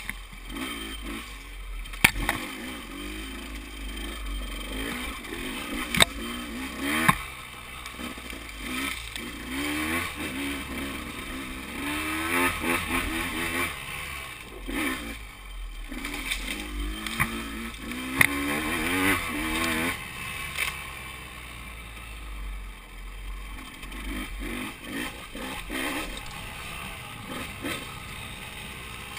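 KTM 200 XC-W two-stroke single-cylinder dirt bike engine rising and falling in pitch as the throttle is worked, with brush scraping and a few sharp knocks.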